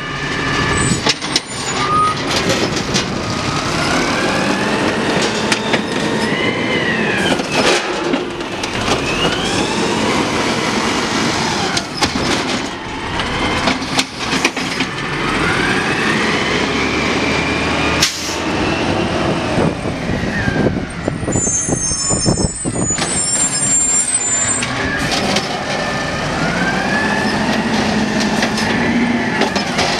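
Automated side-loader garbage truck picking up carts: the diesel engine revs up and down with each cycle of the hydraulic arm, giving repeated rising-and-falling whines, with clanks of carts and the arm throughout. Short high squeals come about two-thirds through, and the air brakes hiss.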